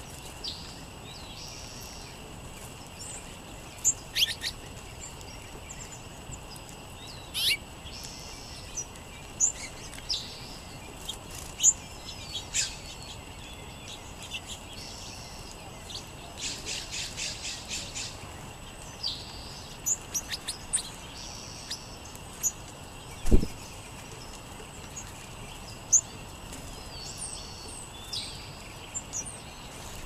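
Small songbirds, the sparrows of a mixed feeding flock, giving scattered short chip calls and chirps. A quick rattling run of about ten notes comes a little past the middle, and a single dull thump, the loudest sound, follows a few seconds later.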